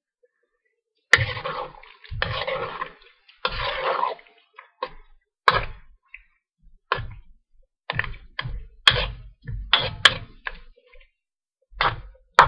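Long metal spoon scraping and knocking against a metal wok as a stir fry is stirred and tossed. It starts about a second in with three longer scrapes, then continues as shorter, irregular sharp clanks.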